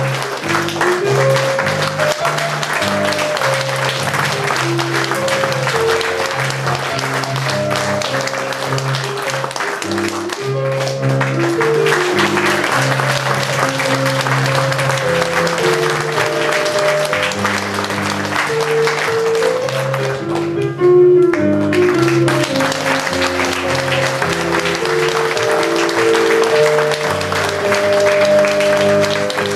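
An audience applauding over music. The clapping eases off briefly twice while the music carries on.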